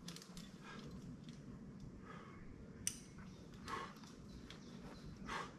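A climber breathing hard in several short puffs, the loudest two in the second half, with one sharp click about three seconds in.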